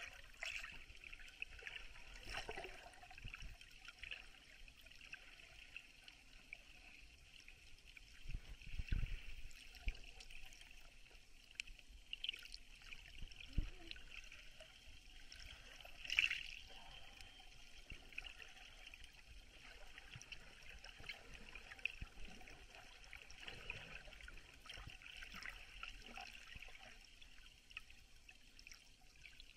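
Muffled water noise heard from under the surface: a faint steady hiss with bubbling and gurgling, broken by a few short, louder swishes of water movement.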